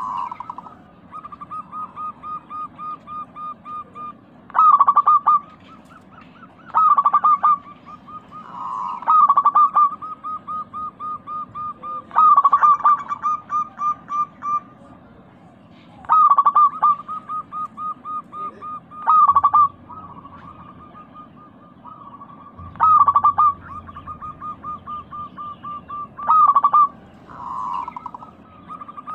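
Zebra dove (local perkutut) singing: a long run of quick, even coo notes, broken every few seconds by a louder burst of rolling call.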